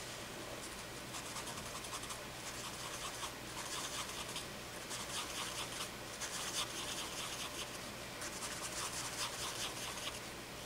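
A paper napkin rubbed over graphite on drawing paper, blending the pencil shading into a soft cloud: quick, irregular scratchy rubbing strokes.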